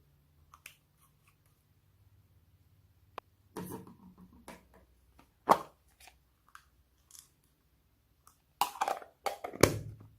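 Homemade slime being pressed and worked by hand, giving irregular sticky clicks and short crackly squelches, loudest in a cluster near the end.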